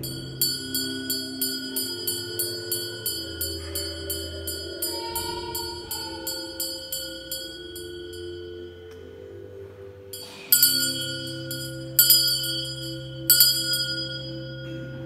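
Small altar bells (sanctus bells) rung in a quick run of strikes, about three a second, for several seconds, then rung three separate times near the end, louder. This is the ringing that marks the consecration at Mass. Soft sustained organ chords play underneath.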